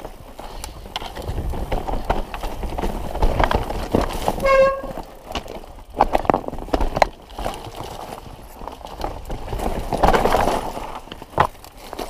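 Mountain bike riding over a wet, rocky trail: knocks, rattles and tyre noise throughout, with a short steady-pitched squeal about four and a half seconds in.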